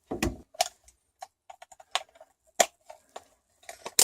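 A multimeter and its test probes being handled: irregular light clicks and taps, spaced unevenly, with a quick run of them near the end.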